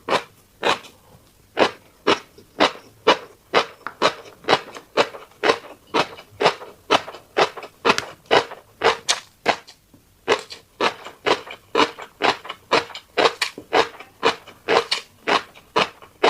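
Close-miked chewing of a fish roe and seafood rice bowl: a steady run of wet, crunchy bites at about two to three a second, with a brief pause near the middle.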